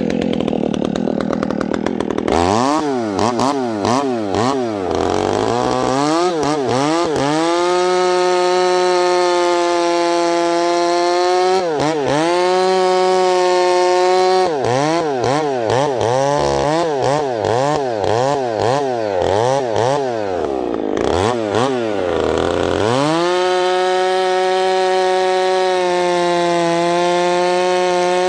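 Husqvarna 372XP two-stroke chainsaw with a 28-inch bar and hand-filed, square-ground full-house chain cutting balsam fir: after a couple of seconds it is blipped up and down several times, then held at steady full throttle through long cuts, dropping back briefly twice.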